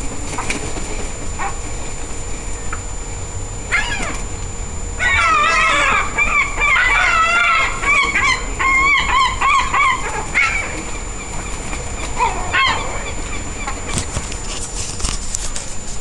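Gulls squabbling: a short call about four seconds in, then several gulls calling loudly together in a wavering, overlapping run for about five seconds, and another call near 12 seconds. Clicks and rustles come near the end.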